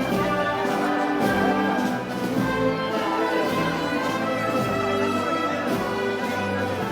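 Brass band playing festival music of the kind used in Moros y Cristianos parades: sustained brass chords over a regular percussion beat.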